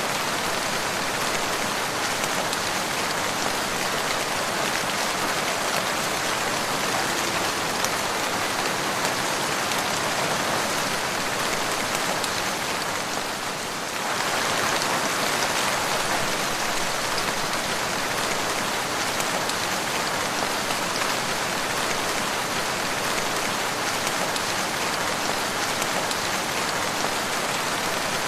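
Steady rain falling on a surface, a dense even patter of drops. The level dips briefly about halfway through and then resumes.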